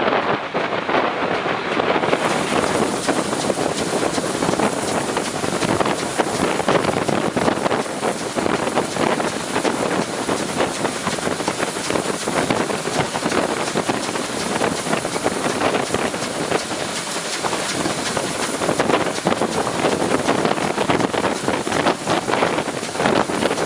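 A train in motion on the line: a steady, loud rushing and clattering noise with no clear engine note, mixed with wind on the microphone.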